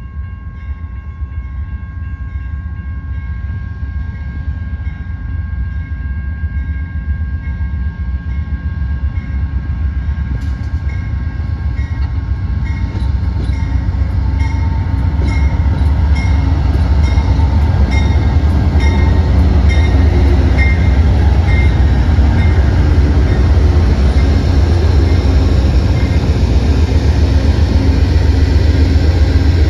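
Train rolling past, a steady low rumble that grows louder as it comes closer. From about a third of the way in come regular clicks, typical of wheels passing over rail joints.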